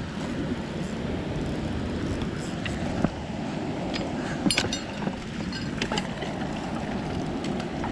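Steady rush of river rapids with wind on the microphone, broken by a few sharp clicks and knocks of fishing gear being handled.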